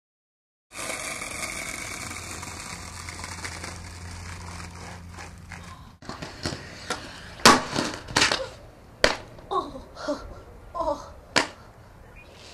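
Inline skates and a body slamming onto concrete steps and pavement as a rollerblader falls on a stair set: a run of sharp, hard knocks and clatters, the loudest a little past the middle, after several seconds of steady outdoor noise.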